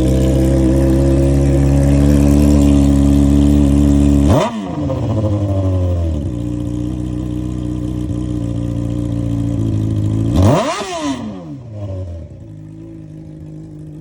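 Honda CBR600RR's inline-four engine idling loudly and blipped twice, about four seconds in and again near the end, each rev shooting up and dropping straight back; after the second blip it settles to a quieter idle.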